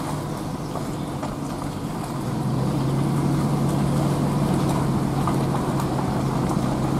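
Pickup truck driving slowly, heard from inside the cab: a steady low engine hum with tyre and road noise, growing louder about two and a half seconds in as the truck picks up a little speed.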